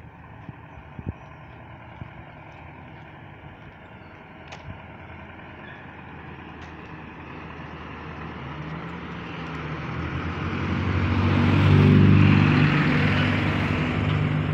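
A bus approaching and passing close by: its engine and tyres grow steadily louder through the second half, loudest about twelve seconds in. Before that, only quiet street background with a few light clicks.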